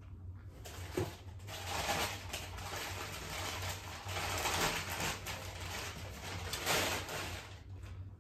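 Crumpled newspaper packing rustling and crinkling in waves as an item is dug out of a cardboard box and unwrapped, with one sharp knock about a second in.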